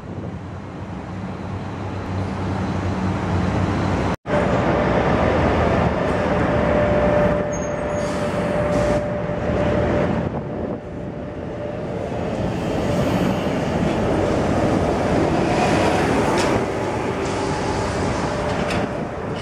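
City street traffic with trolleybuses pulling past at close range. A steady whine rides over the traffic noise for several seconds. The sound cuts out briefly about four seconds in.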